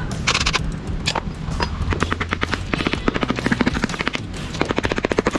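A hand ratchet clicking rapidly, about ten clicks a second, from about two seconds in, as the screws of a motorcycle engine's top end are undone.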